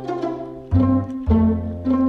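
Background music: plucked string notes over low bass notes, with a new note striking about every half to two-thirds of a second.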